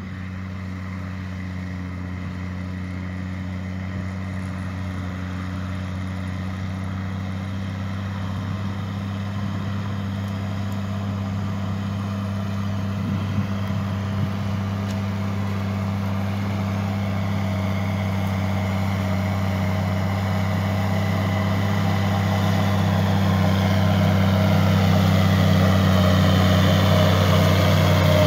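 Fendt Favorit 711 tractor's diesel engine running steadily under load while pulling a plough through the field, a low even drone that grows steadily louder as the tractor comes closer.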